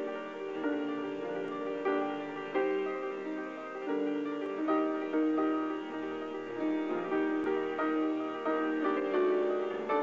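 Slow instrumental keyboard music, like a piano: single notes struck about once or twice a second and left to ring.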